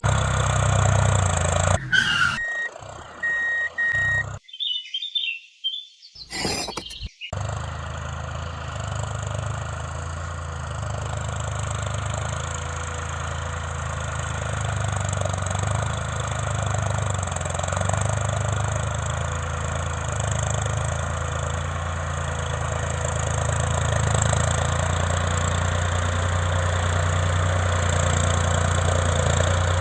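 An engine or motor running steadily with a low hum that swells and eases every few seconds. The first several seconds are broken up by short cut-off sounds and brief gaps.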